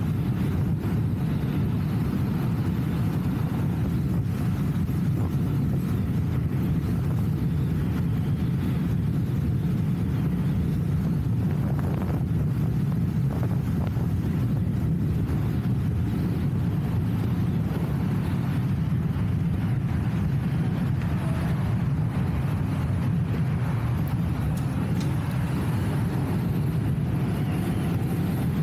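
Steady low rumble of wind buffeting the microphone, with road noise, while riding an electric unicycle at speed.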